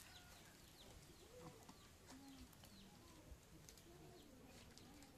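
Faint bird calls, short curved pitch glides coming several times, with a few soft clicks.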